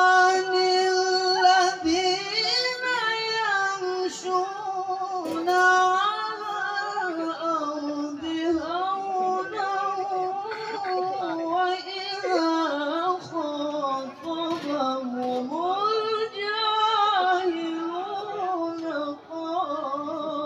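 A male qari recites the Qur'an in a melodic, ornamented style through a microphone and PA: long sung phrases with held notes and wavering, embellished pitch.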